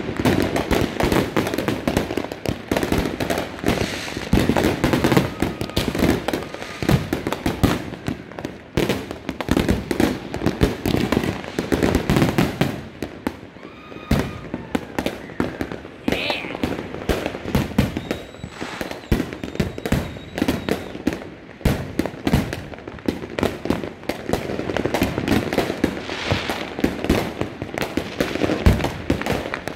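Fireworks going off nonstop: a dense, irregular barrage of bangs and crackling from many aerial shells and firecrackers at once, easing briefly to quieter popping partway through.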